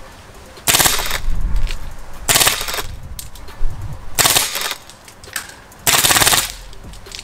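Lancer Tactical M2 heavy machine gun airsoft replica, powered by compressed air at 80 PSI, firing four short full-auto bursts of about half a second each, a rapid chatter of shots, with a second or so between bursts.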